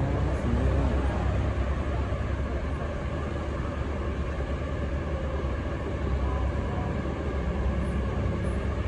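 Steady outdoor city background noise dominated by a low rumble, with faint voices of onlookers.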